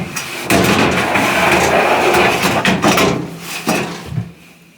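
The dryer's sheet-metal drum scraping and rattling loudly against the cabinet as it is lifted out, for about three seconds before dying away.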